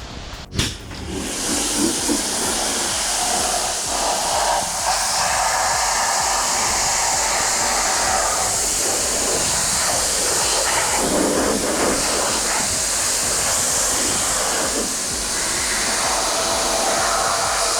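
Pressure washer spraying water: a loud, steady hiss that starts suddenly about a second in, after a single click.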